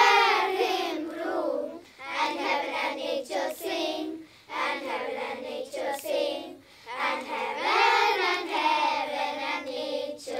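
A children's choir singing a Christmas carol together, in phrases broken by short pauses.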